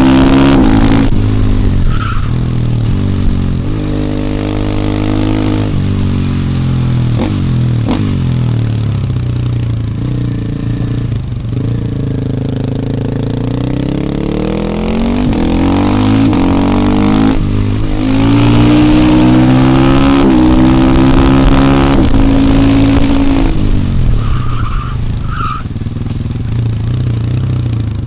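KTM 450 EXC supermoto's single-cylinder four-stroke engine under way. It revs up and falls back again and again as the bike accelerates and slows, runs high and steady for a few seconds about two-thirds of the way in, then drops off.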